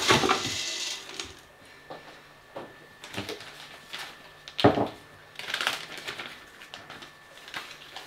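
Prepared hempseed scooped into a plastic pint jug, then a plastic zip-seal bag handled: a grainy hiss at the start, small clicks and rustling, and one sharp knock a little past halfway.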